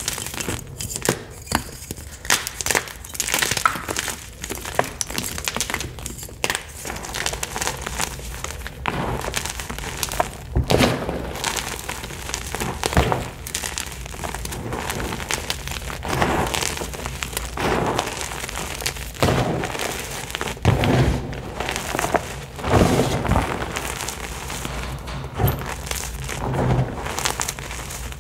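Hands crushing and crumbling Picsil chalk blocks into powder: a dense run of dry crunches and crackles. From about ten seconds in come heavier, deeper crunches every second or two as handfuls are squeezed.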